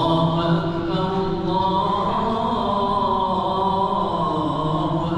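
A man's voice chanting in Arabic in long, drawn-out melodic phrases whose pitch glides slowly: the prayer leader's recitation at the mosque's dawn (Fajr) prayer.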